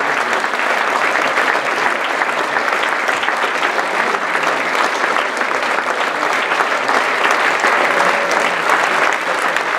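Theatre audience applauding: many hands clapping in a dense, steady mass.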